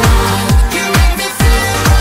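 Electronic dance music with a steady kick drum about twice a second; the bass drops out briefly about a second in.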